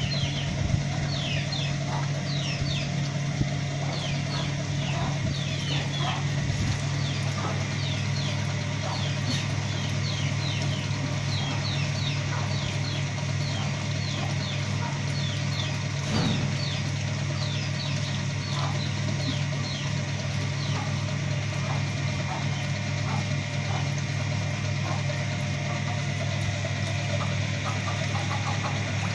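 Chicks peeping again and again in short, high, falling chirps, over a steady low mechanical hum like an idling engine.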